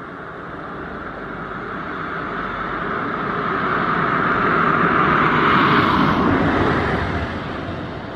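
A vehicle passing by: its noise swells steadily to a peak about six seconds in, then fades away.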